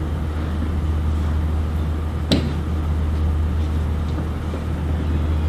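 A steady low hum with a single sharp knock a little over two seconds in, a cane tip or foot landing on the wooden practice stairs during a cane-assisted descent.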